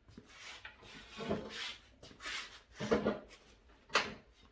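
Handling noises in a small room: a few scuffs and rubs, then a sharp knock about four seconds in.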